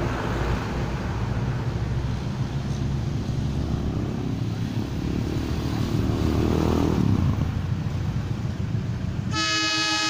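Approaching diesel passenger train: a steady low engine drone. Near the end, the locomotive's horn starts sounding one loud, steady chord, the start of a 'telolet' horn greeting.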